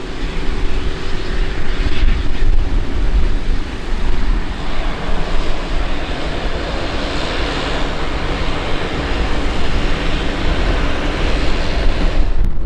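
Pilatus PC-12's Pratt & Whitney Canada PT6A-67B turboprop engine running steadily as the aircraft taxis and turns onto the runway, a loud, continuous turbine-and-propeller noise.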